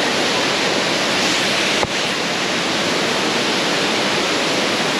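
Waterfall rushing steadily, a loud, even roar of falling water, with a brief click a little under two seconds in.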